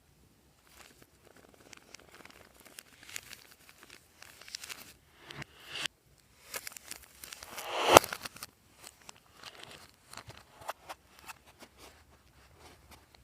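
Clear slime with mixed-in add-ins being squished and stretched by hand, making irregular crackling, clicking and crinkling sounds. About eight seconds in comes a louder crackling swell that ends sharply.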